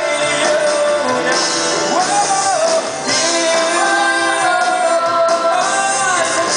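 Live rock band playing a song with a singer over it: drums, acoustic and electric guitars and keyboard.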